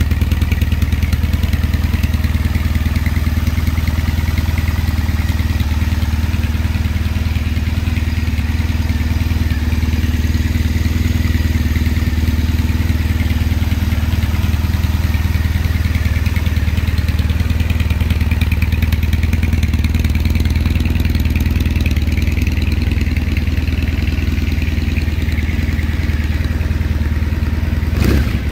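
Triumph Thruxton's 865 cc air-cooled parallel-twin idling steadily through aftermarket TOR slip-on silencers.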